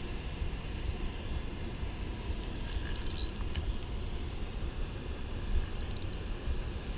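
Steady rushing of water pouring over a low-dam spillway, with a gusty low rumble of wind on the microphone.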